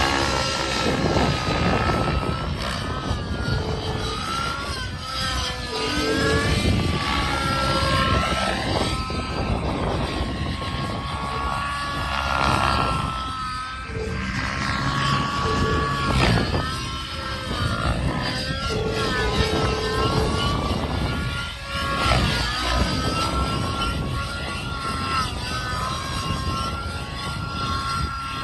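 Nitro-engined Protos 700 RC helicopter flying aerobatics: its glow engine and rotor whine rise and fall in pitch again and again as it manoeuvres.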